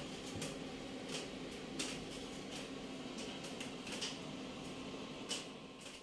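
Faint light clicks and taps scattered over a steady low hum and room hiss.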